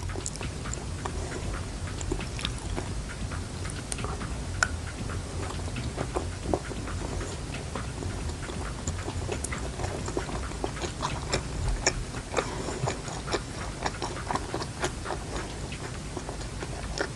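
Close-up chewing and mouth sounds of someone eating a stuffed fishball: many small irregular clicks and smacks over a low steady hum.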